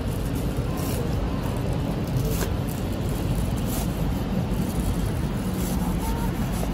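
A steady low rumble of street traffic, with a few short, faint crunches as a cleaver cuts through a giant crispy deep-fried dough stick (youtiao) on a plastic cutting board.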